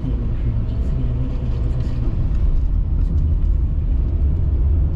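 A car's road and engine noise heard from inside the cabin while driving: a steady low rumble that grows slightly louder about two seconds in.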